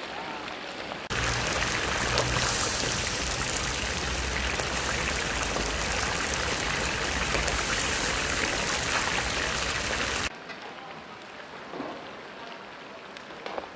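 Chunks of lamb searing in deep hot sunflower oil in a giant plov kazan, a steady dense sizzle. It jumps sharply louder about a second in and drops back near the end to a quieter, more distant sizzle.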